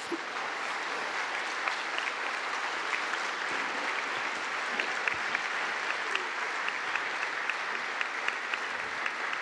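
Large audience applauding: a dense, steady patter of many hands clapping, with single sharper claps standing out here and there.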